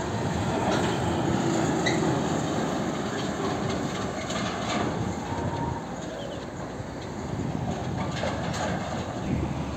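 Tractor-trailer hauling an empty shipping container drives past, its diesel engine running under road noise, with scattered clanks and rattles from the trailer and container.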